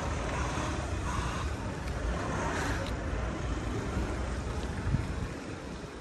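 Gusty wind buffeting the microphone, a low rumbling noise that eases a little near the end, with a single short knock about five seconds in.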